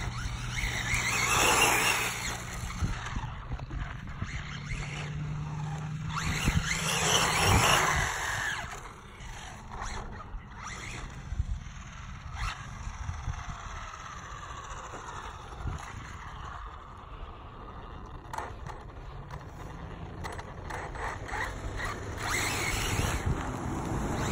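Electric Traxxas RC car running on a 3S LiPo pack: a high-pitched motor whine that rises and falls as the car speeds by. It is loudest about a second in, around seven seconds in, and near the end, with fainter passes in between.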